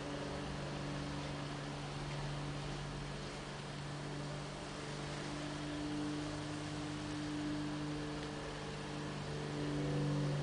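A steady low hum, made of a few held tones, over a constant hiss.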